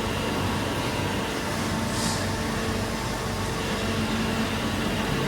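Steady industrial machinery hum with faint steady tones, and a brief hiss of air about two seconds in.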